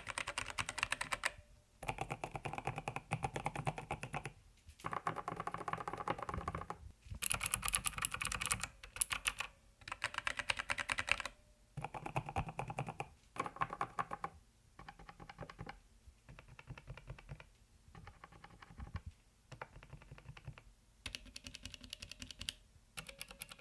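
Typing on a mechanical keyboard with Gateron switches: runs of fast key clatter broken by short pauses, louder in the middle and softer near the end.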